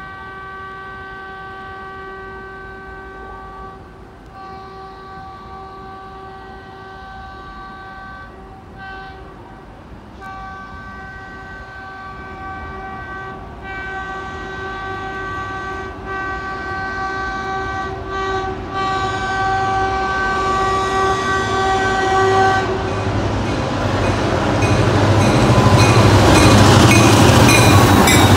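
The horn of New York & Atlantic GP38-2 locomotive 268 sounding in a series of long blasts with short breaks, for a little over twenty seconds. After the horn stops, the rumble of the diesel engine and the wheel noise swell as the locomotive passes close by.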